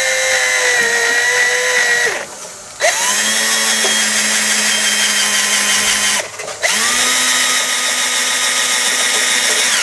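Electric drill running in three long bursts, each one spinning up quickly to a steady whine and winding down at the stop.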